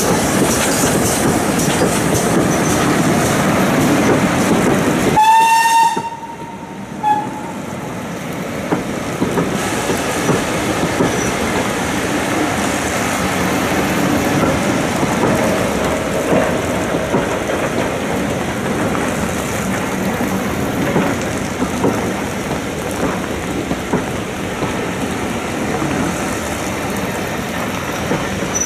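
GWR Manor class 4-6-0 steam locomotive running close by, then a short steam whistle about five seconds in and a briefer toot soon after. Its carriages then roll past, rumbling and clicking over the rail joints.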